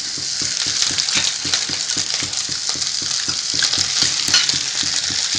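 Onion-tomato masala frying in oil in a pan: a steady sizzle with many fine crackles.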